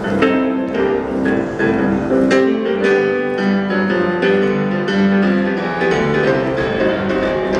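Rock and roll music led by piano.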